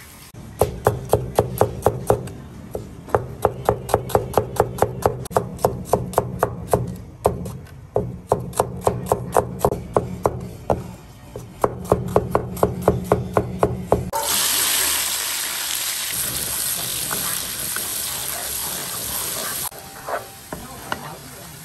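Rapid, regular knocks of a kitchen utensil, about three or four a second. About fourteen seconds in they give way to a loud, steady sizzle of food frying in hot oil, which cuts off suddenly near the end.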